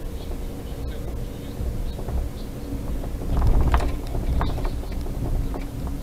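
Car driving on an asphalt road, heard from inside the cabin: a steady low rumble of tyres and engine. A cluster of louder rattles and knocks comes about halfway through.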